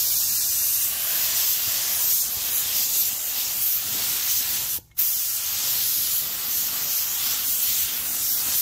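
Compressed-air gravity-feed paint spray gun hissing steadily as it atomizes and lays on clear coat. The spray runs in two long passes, with a brief break in the trigger a little past halfway.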